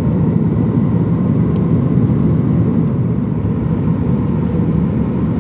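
Steady low rumble of a Boeing 737's engines and rushing air, heard inside the passenger cabin, with a faint thin steady tone above it.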